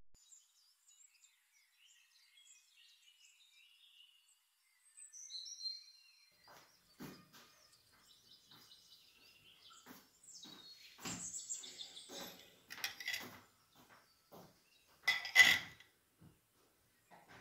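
Fork and knife cutting through a stack of pancakes, clicking and scraping against the plate in a run of short knocks, loudest near the end. Birds chirp faintly in the first few seconds.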